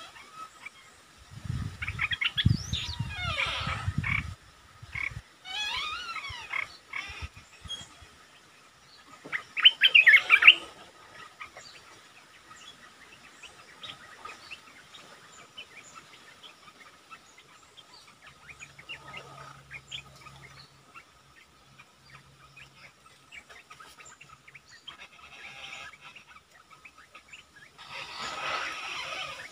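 Olive-winged bulbul calling: short bursts of quick, rising and falling whistled notes, several times, loudest about ten seconds in, with a low rumble under the first burst.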